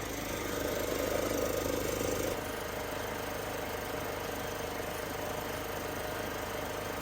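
Generac portable gasoline generator's OHVI engine running steadily, a little louder in the first two seconds and then even.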